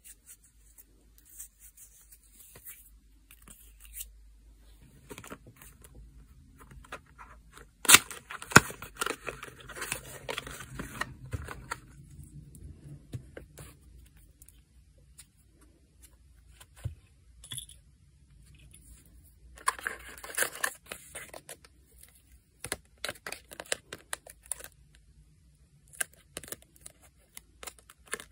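Close-up handling sounds of nail-art work: scattered light clicks and taps of tools and small containers, with a sharp click about eight seconds in, the loudest moment, followed by a few seconds of busy handling noise, and another busy stretch about twenty seconds in.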